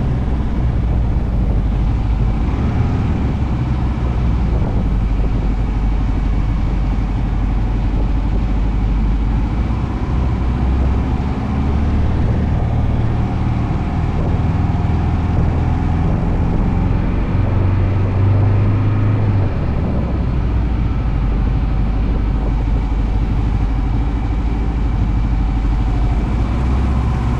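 Motorcycle riding along a road, heard from the bike itself: the engine running steadily under wind and road noise, its low note shifting a few times with changes in speed.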